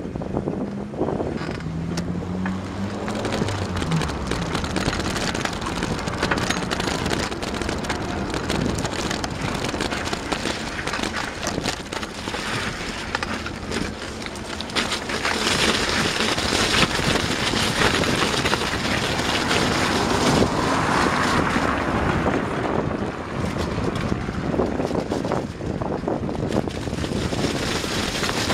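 Wind buffeting the microphone of a camera on a moving bicycle, a steady rushing noise throughout. In the first few seconds a car engine passes, rising and then fading.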